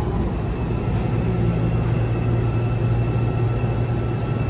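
Steady low hum of a Seoul Subway Line 4 train car heard from inside the car, with a faint thin whine joining about a second in.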